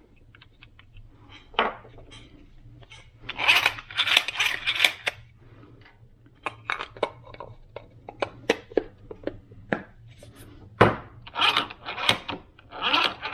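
Metal hand tools clinking and clattering against metal parts in irregular bursts of clicks, with one louder knock near the end.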